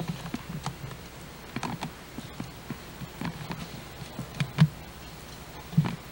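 Irregular soft knocks and clicks, a few louder thumps among them, about four and a half seconds in and again near the end, over a low steady hum.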